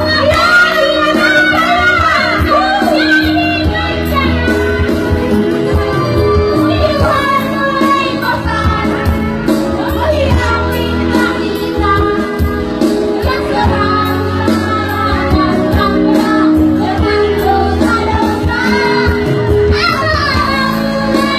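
A young child singing a melody over backing music with steady sustained low notes.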